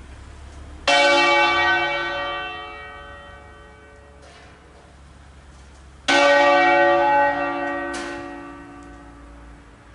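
Church bells, a ring of six cast by Crespi of Crema in 1885 and tuned to D-flat, playing a slow funeral 'concerto' of single strokes. One bell strikes about a second in, another about five seconds later and a third two seconds after that, with a fainter stroke between the first two; each note is left to ring out and fade over several seconds.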